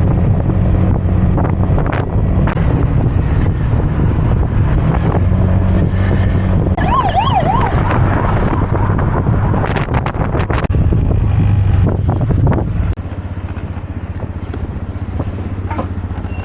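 Wind buffeting the microphone on a moving scooter, a loud low rumble over the engine and road noise that eases about 13 seconds in. About seven seconds in, a siren warbles briefly, fast up and down.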